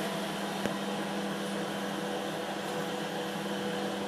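Steady hiss of a gas stove burner heating a covered aluminium pot of steaming chicken, with a constant low hum underneath.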